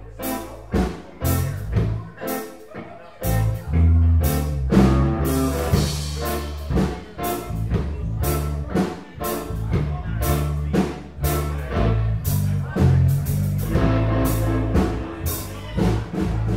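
Live band of drum kit, electric bass and electric guitar playing an instrumental passage. There are stop-start drum hits and bass notes at first, and the full band comes in steadily about three seconds in.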